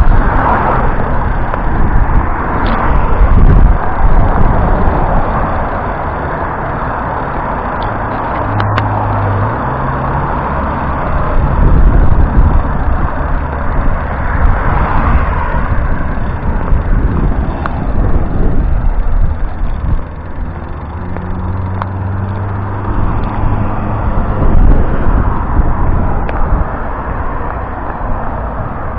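Strong wind gusting hard against the microphone, a loud rumbling buffet that surges and eases every few seconds, with the steady hum of road vehicles passing underneath.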